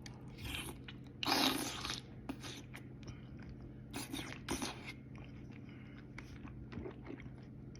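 Close-up mouth-eating sounds: crunchy bites and chewing, the loudest bite about a second in and two more near the middle, with small wet clicks between them.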